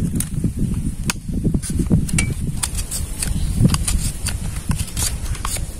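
A knife shaving and whittling a thin strip of bamboo: irregular short scraping strokes with sharp clicks of the blade on the bamboo, over a low rumble.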